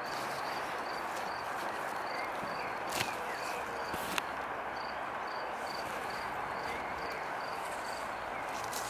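A cricket chirping at an even pace, about two chirps a second, over a steady outdoor hiss. Two sharp clicks come about three and four seconds in.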